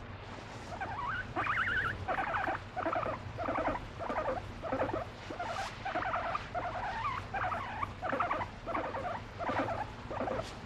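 Abyssinian guinea pig calling while being stroked: a run of short, squeaky, stuttering calls, about two a second, starting about a second in.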